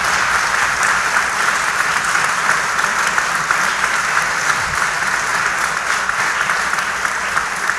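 A congregation applauding steadily, a dense wash of many hands clapping.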